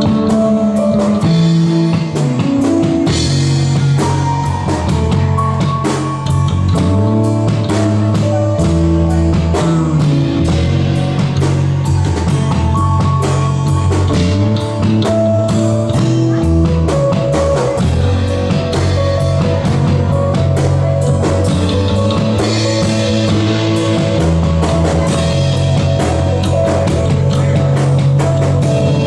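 Rock band playing an instrumental passage, with guitar notes over a steady drum kit beat.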